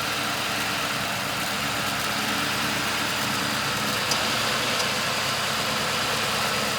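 2005 Ford Crown Victoria Police Interceptor's 4.6-litre V8 idling steadily, kept running by fuel poured down the intake because the fuel pump is bad; the engine sounds good. A faint brief tick comes about four seconds in.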